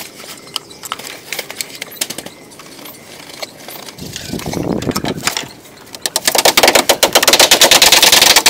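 Dry leaf shingles crackling and rustling against a bamboo wall as they are handled and fixed in place. About six seconds in comes a fast, loud clatter of tapping and crackling, the loudest part.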